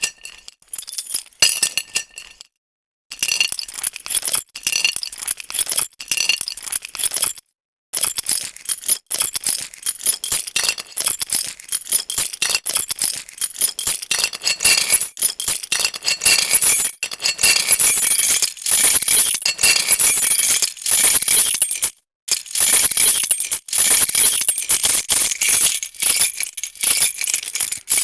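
A bunch of metal keys jangling and shaken, a dense run of sharp metallic clinks and jingles with a bright ring, stopping briefly three times.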